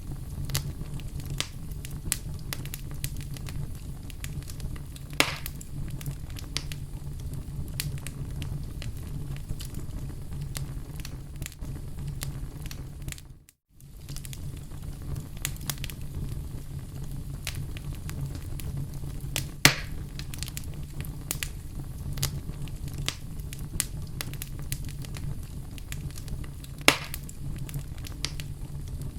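Wood fire crackling in a fireplace, with a steady low rumble under constant small crackles and three louder pops. About halfway through, the sound dips out for a moment and comes back.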